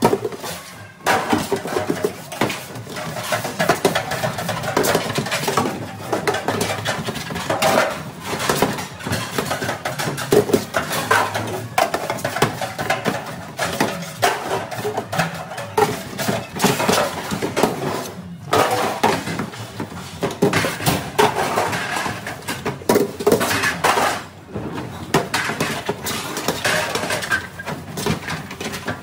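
Stainless steel hotel pans clanking and scraping against each other and the steel sink as they are scrubbed and stacked by hand in a three-compartment sink, with water splashing. A busy, continuous clatter of knocks and clinks that briefly lulls a few times.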